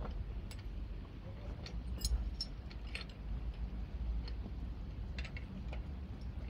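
Rope-rescue gear being handled: a scattered series of light metallic clicks and clinks over a steady low rumble.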